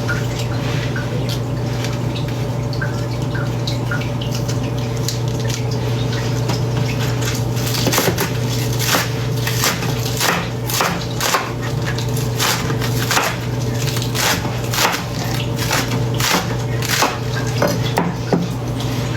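Kitchen knife chopping green onions on a cutting board: sharp, irregular chops, roughly two a second, starting about halfway through, over a steady low hum.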